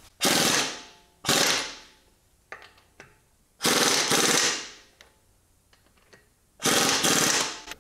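Impact wrench running the lug nuts tight on a car wheel being refitted: four short bursts of rapid hammering, each starting abruptly and fading away over about half a second.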